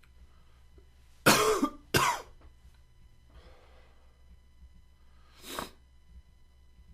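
A man coughing: two loud harsh coughs in quick succession about a second in, a fainter breath a moment later, and a shorter, quieter cough-like burst near the end.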